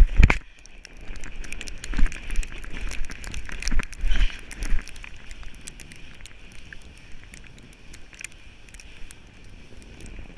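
Sled sliding fast down a snowy slope: a steady scraping hiss over the snow with dense crackling and small knocks. There is a heavy knock at the very start, stronger bumps over the first few seconds, and then an evener run.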